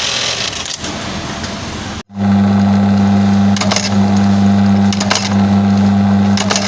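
Industrial garment machine running with clattering clicks. About two seconds in the sound cuts off abruptly, then comes back as a steady low machine hum with scattered clicks.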